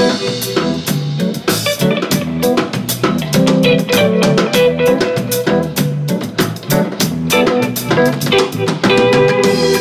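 Live improvised jazz played by a band of electric guitar, keyboards, electric bass and drum kit, with held notes over a steady drum pattern.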